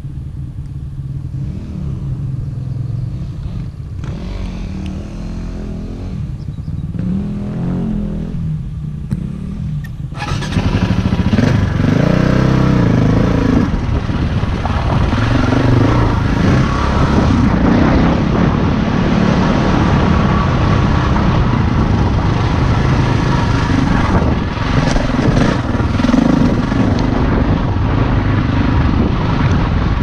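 Off-road motorcycle engine running as it rides a rocky trail, its pitch rising and falling with the throttle. About ten seconds in it gets louder, with a rushing noise added on top.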